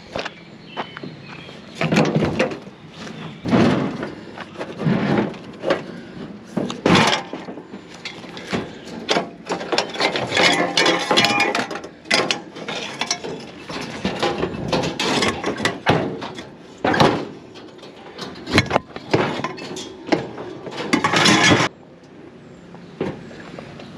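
Metal scrap being handled and loaded: a run of irregular clanks, knocks and scraping, the loudest bangs at several points and a steadier stretch of rattling and scraping in the middle.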